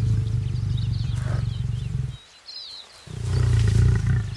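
Male lion roaring: a long, deep roar, a short pause about two seconds in, then a second roar. Birds chirp faintly above it.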